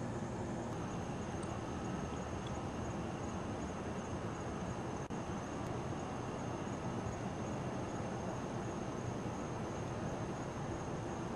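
Steady background noise: a low rumble and hiss with a faint high whine above it, unchanging throughout.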